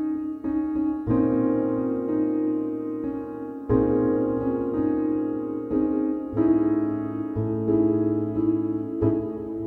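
Slow background piano music, chords struck every second or two and left to ring.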